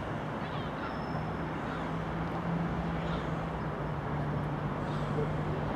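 A steady low engine hum over a constant background rumble.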